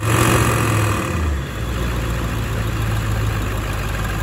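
Ford Econoline van's engine idling, heard close to the open engine bay: a steady low hum that shifts slightly lower about a second and a half in.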